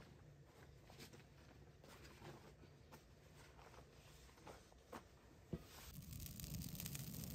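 Near silence: faint background with a few soft scattered taps, two of them sharper about five seconds in, and a low rumble that grows near the end.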